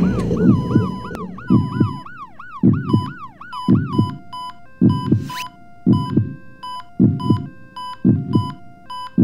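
Heartbeat sound effect thumping about once a second. Over it, an ambulance siren yelps quickly up and down for about the first four seconds, then electronic patient-monitor beeps take over.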